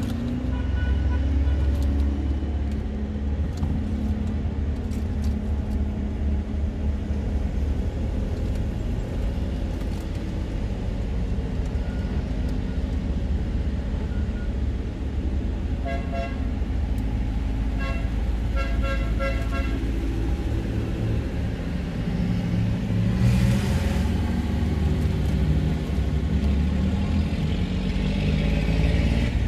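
Vintage tractor engines running in a steady low rumble as the tractors pass in procession. Midway through there is a run of short horn toots.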